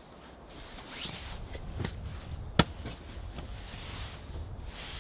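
A thick padded quilt rustling as it is folded up on a car's cargo-area mat, with one sharp click about two and a half seconds in.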